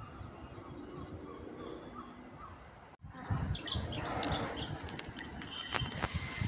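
Small birds chirping over a quiet background. After that, a Class 395 Javelin high-speed electric train runs into the station, its rail and running noise growing louder toward the end, with a high thin squeal coming in near the end.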